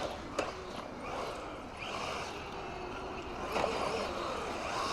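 MJX 10208 brushless RC truck driving some way off: a faint motor whine and tyre noise over an even hiss, with one sharp click about half a second in.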